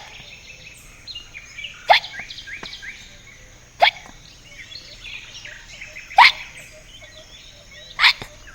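A cartoon character hiccuping five times, about two seconds apart, each a short sharp "hic" that sweeps up in pitch. Faint birdsong plays between them.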